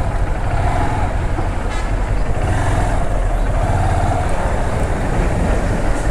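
A vehicle engine running steadily with dense travel noise.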